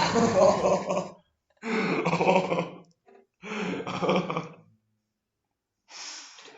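A voice giving three short barking, growling cries, each about a second long, with silence between them and a fainter fourth cry near the end.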